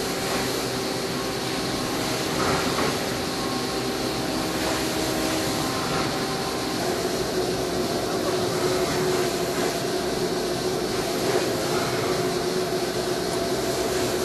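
DMU 40 monoBLOCK five-axis machining centre finishing a propeller blade with its spindle at 6,300 rpm: steady cutting and spindle noise over a hiss, with a steady hum whose pitch shifts slightly about seven seconds in.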